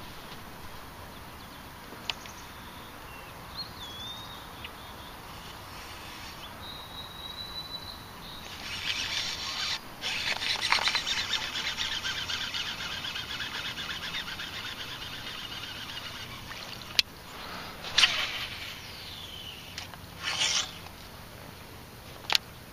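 Outdoor ambience with a few short bird chirps and a held whistle, then a high buzzing hiss that swells about a third of the way in and fades over several seconds. A few sharp clicks follow near the end.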